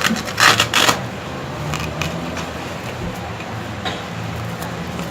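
Brief rasping, rustling bursts in the first second as a blood pressure cuff is handled, then a steady low hum.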